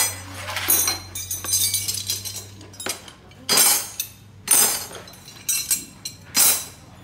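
Metal pieces clinking and knocking together in a workshop, about seven sharp ringing strikes at irregular gaps, over a low steady hum.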